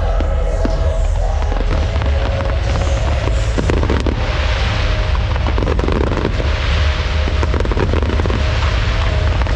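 Fireworks display going off continuously: a dense run of crackling and popping over a constant deep rumble of bursts, with hissing swells about four and seven seconds in.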